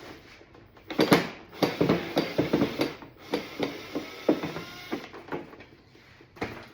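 Irregular knocks, clicks and clatter of a hard plastic car door panel and its parts being handled and shifted, with one loud knock about a second in.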